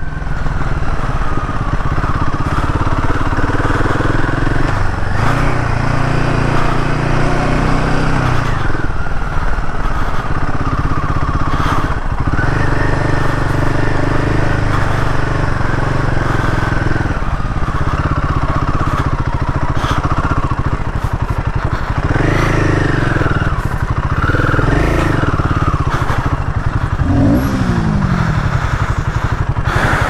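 Royal Enfield Himalayan 450's single-cylinder engine running while the bike is ridden, its pitch rising and falling as the throttle is opened and closed.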